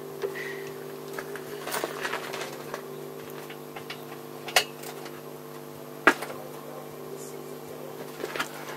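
Hand work on a motorcycle's carburettor and throttle-cable fittings: scattered sharp clicks and light metallic knocks, the loudest two about four and a half and six seconds in, over a steady low hum.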